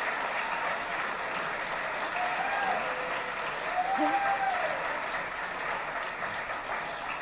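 Audience applauding, with a few voices calling out over it.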